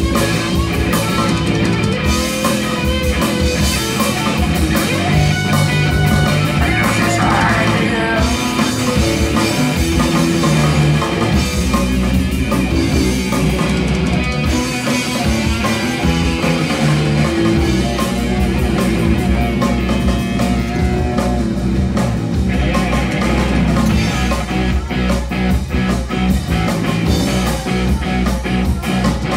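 Punk rock band playing live and loud: electric guitar, bass guitar and drum kit going steadily through the whole stretch.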